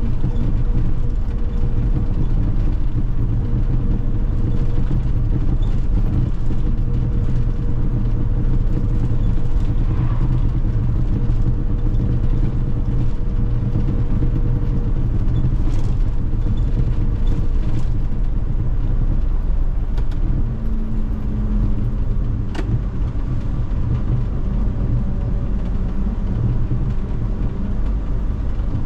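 Cabin sound of an MMI Urby LE CNG city bus under way, its Iveco F1C 3.0-litre CNG engine and drivetrain giving a steady low rumble under the hiss of air rushing in through an open vent. A thin whine runs through the first half, and a few sharp clicks come past the middle.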